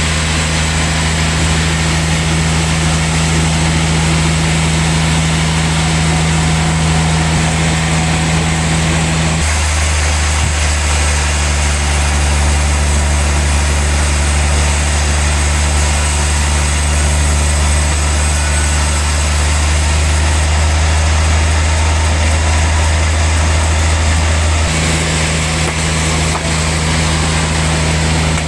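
Heavy log sawmill machine running steadily while sawing a large log, its low steady drone changing pitch and weight about a third of the way in and again near the end.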